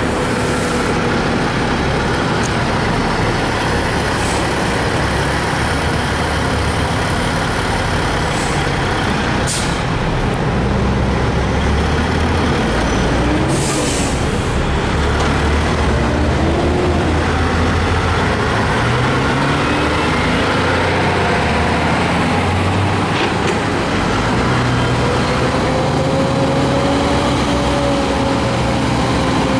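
A slow convoy of heavy diesel gas-drilling trucks (frack, sand and water trucks) passing close by, engines running and their pitch rising and falling as they pull through. Short air-brake hisses come about ten and fourteen seconds in.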